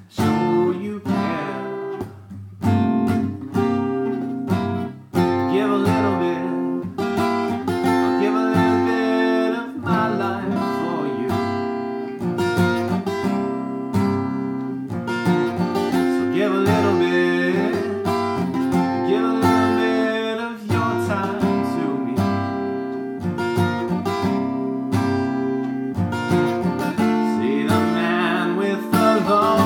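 A man singing along to his own strummed acoustic guitar. The guitar runs throughout, and the voice comes in and out between instrumental stretches.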